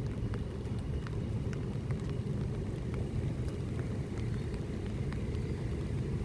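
Steady low rumble of road traffic, with faint scattered ticks of rain.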